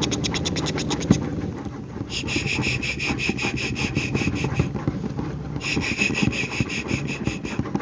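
Close-miked ASMR mouth and bucket sounds: rapid, even scratching clicks, joined about two seconds in and again about six seconds in by a high, pulsing buzz lasting two seconds or so each time.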